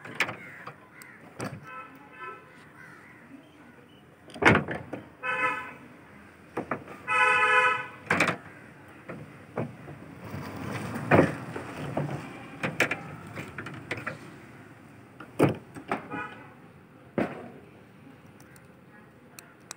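Automatic roller-type swing gate opener driving a double metal gate open, with scattered sharp knocks and clicks from the gate. Two honk-like tones sound in the first half, the second lasting about a second.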